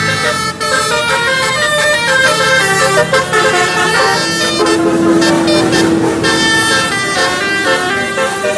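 Basuri telolet musical air horns on a Tunggal Jaya bus playing a tune: several bright, reedy tones move together in quick stepped notes, with one low note held for about two seconds midway.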